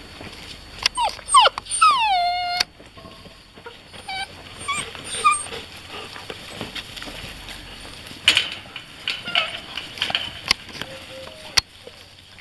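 Beauceron puppies whining and yelping: a run of short, high falling whines about a second in, ending in a longer drawn-out whine, then a few short squeaks. Several sharp knocks come later.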